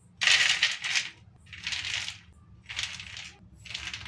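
Crispy fried corn kernels spooned from a steel spoon onto a ceramic plate, rattling down in four spoonfuls about a second apart, the first the loudest.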